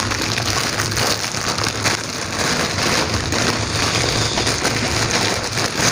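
Plastic bag crinkling and rustling continuously as crunchy kerupuk crackers are pulled out of it. The noise is dense and crackly, and it stops abruptly at the end.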